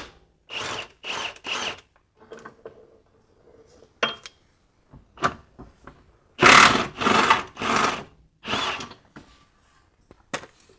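Milwaukee M18 cordless impact wrench hammering in short bursts as it loosens 18 mm subframe bolts: three quick bursts in the first second and a half, then a longer run of bursts about six to nine seconds in.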